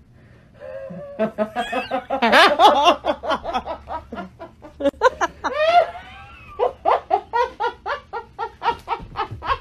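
A woman laughing hard: long wavering, high-pitched peals with rising and falling pitch, breaking near the end into quick rhythmic bursts of laughter.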